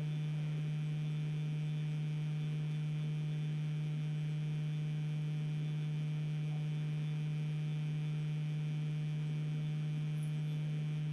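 Steady low electrical hum in the recording: one constant low tone with fainter overtones, unchanging throughout.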